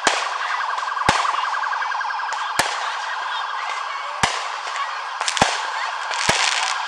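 Consumer aerial firework shells bursting overhead, about seven sharp bangs at irregular intervals, two of them close together near the end, over a continuous background din.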